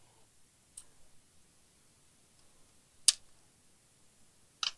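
Small sharp clicks from unplugging the screen cable connector on a laptop motherboard: a faint one about a second in, a louder one about three seconds in, and another near the end.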